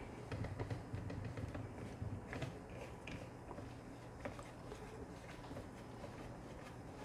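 Faint handling noise: light scattered clicks and rubbing as a threaded lead screw on a CNC Z-axis is turned by hand, over a steady low hum.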